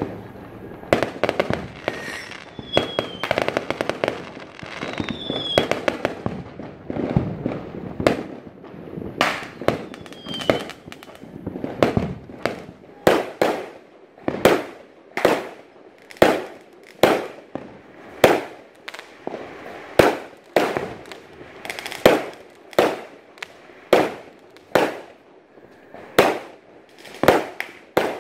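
Fireworks bursting overhead: dense rapid bangs and crackling with a few short whistles for the first several seconds, then a steady run of loud bangs about one a second, each trailing off.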